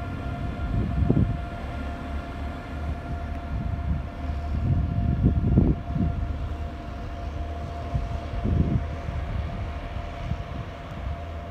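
Red DB Class 146 electric locomotive hauling a regional train as it pulls away along the platform. A steady whine from its electric drive sits over the low rumble of the train, with a few louder low surges of rumble.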